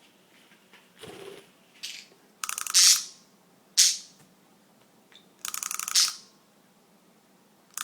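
Clockwork of a small wind-up toy clicking rapidly in two short bursts, with a couple of short, sharp budgie chirps between them.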